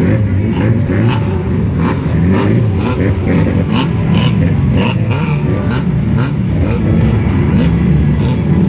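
A pack of Lightning Rod stock-car engines racing past, their pitch sliding up and down as the cars rev through the bend, with a run of sharp cracks through the middle.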